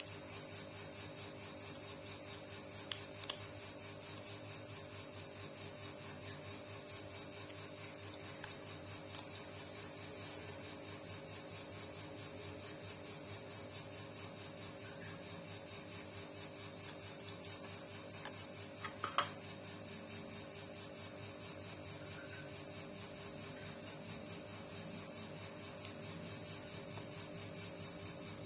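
Sewing machine running steadily with an even hum and a fine regular rhythm, with a couple of light clicks about 3 and 19 seconds in.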